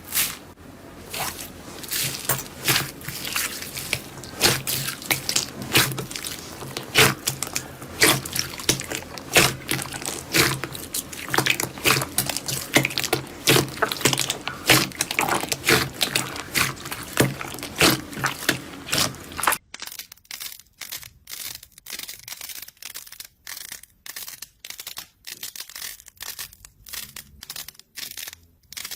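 Slime being squished and pressed by hand: a dense run of wet, sticky clicks and pops. About two-thirds through there is a cut to a quieter clip with sparser clicks.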